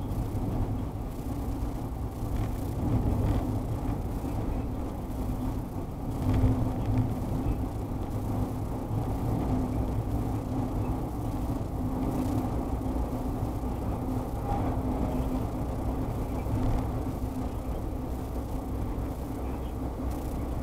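Steady road and engine noise inside a moving car, picked up by a G1W dashcam's built-in microphone, with scattered faint crackles and hiss that come from the recorder itself.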